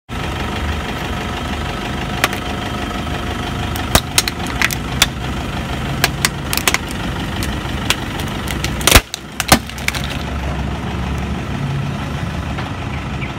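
Car engine idling steadily while a tyre rolls over and crushes a plastic action figure: a string of sharp cracks and snaps of breaking plastic, the loudest pair about nine seconds in.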